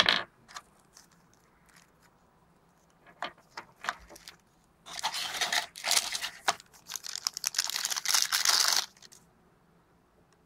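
Phone packaging being handled: a sharp knock at the start and a few scattered clicks and taps, then about four seconds of dense rustling and crinkling of wrapping that stops suddenly.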